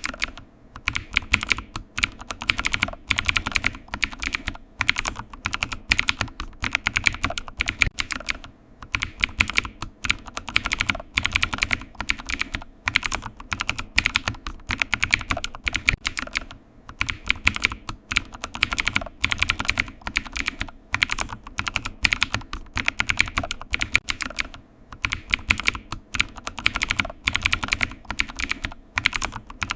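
Computer keyboard being typed on in steady runs of rapid key clicks, broken by short pauses every few seconds.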